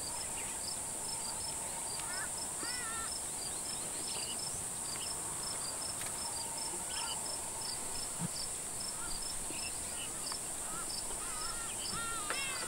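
Bush ambience of insects and birds: a steady high insect drone with regular cricket-like chirps, and bird calls that rise and fall now and then, a cluster of them near the end.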